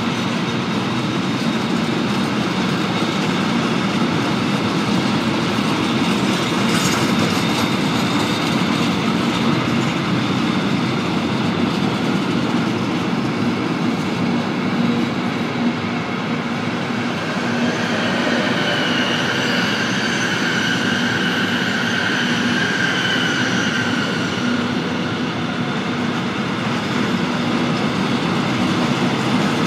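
Freight train of open high-sided goods wagons rolling steadily past at close range, wheels clattering over the rail joints. Partway through, a high squealing tone from the wheels rises over the rumble for several seconds, then fades back into the rolling noise.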